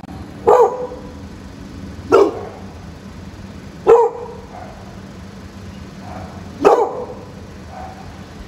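Dog barking: four single loud barks, spaced unevenly about two to three seconds apart.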